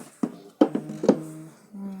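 Tensioned steel wire in a wooden beehive frame plucked several times, each pluck ringing briefly with a twang like a guitar string; the ring shows the wire is tight.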